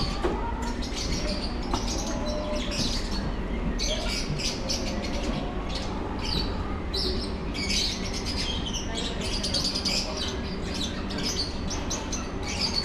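Many caged birds chirping and calling at once: a dense, continuous chatter of short high calls, over a steady low rumble.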